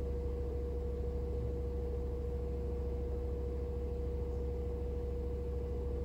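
Fisher & Paykel WM1480P front-loading washing machine in its intermediate spin, the drum spinning at a steady speed: a steady motor whine over a low hum.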